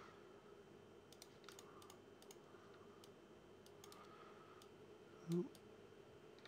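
Faint, scattered clicks of a computer mouse and keyboard over quiet room tone, with one short rising hum of a voice about five seconds in.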